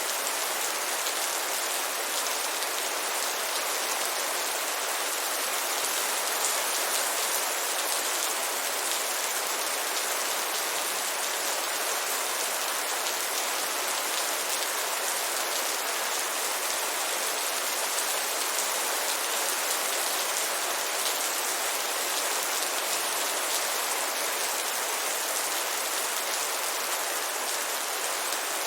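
Heavy rain falling steadily, a dense even hiss of drops with no breaks or changes.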